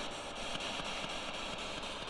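Steady radio static hiss with faint ticks about five times a second: a ghost-hunting spirit box sweeping through radio frequencies.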